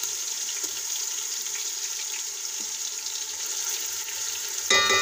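Garlic and ginger paste sizzling steadily in hot oil in an aluminium pot as ground green chilies are stirred in. Near the end comes one sharp clink with a short ring.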